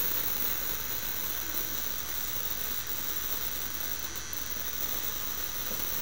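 Plasma-arc lighter's electric arc buzzing steadily against a tea-light wick, with a small handheld fan whirring and blowing on it; in the fan's draught the arc does not light the candle.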